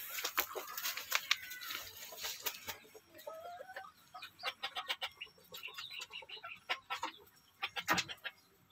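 Junglefowl (wild chickens) clucking, with scattered short calls and soft clicks.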